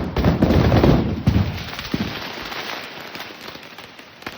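Fireworks crackling from a 20-shot cake: a dense crackle for the first second or so, thinning out and fading over the next few seconds, with a few sharp pops along the way.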